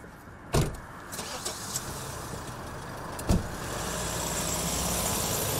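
A car running, its engine and road noise growing louder, with two loud thumps, one near the start and another a little past the middle, and a few fainter clicks between them.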